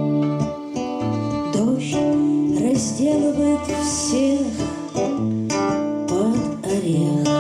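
Live bard song: a strummed acoustic guitar and a violin playing together, with a woman singing from about a second and a half in.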